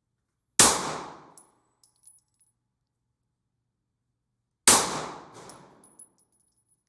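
Two gunshots about four seconds apart on a shooting range. Each shot echoes and fades over about a second, then a few light metallic tinks follow.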